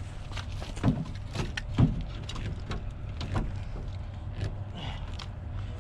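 Clicks, rattles and knocks from a truck's brake controller and its cable being handled, with two louder knocks about one and two seconds in, over a steady low rumble.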